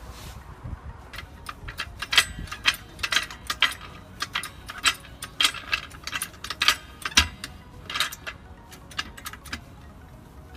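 Hand-pumped hydraulic trolley jack being worked under the car's rear axle, its handle and pump giving an irregular run of metallic clicks and clanks, a few a second. The jack is lifting the rear axle slightly to take the load off the rear shock absorber's bolt.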